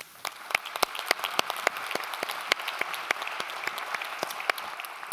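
Audience applauding: a dense patter of hand claps, with a few louder, sharper claps standing out, thinning a little near the end.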